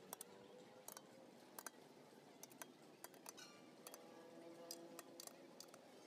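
Faint, irregular metal clicks and clinks, about ten in six seconds, from a T-handle box spanner turning and seating on the nuts of a tractor wheel's centre plate.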